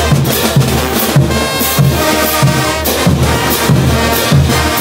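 Brass band playing a morenada: crash cymbals and bass drums keep a steady beat of about two strokes a second under trumpets, trombones and sousaphones. The horns come in more strongly about two seconds in.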